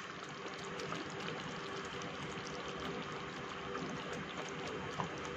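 Cornflour-thickened Manchurian gravy simmering in a pan with the fried balls in it: a steady soft bubbling, with a small click about five seconds in.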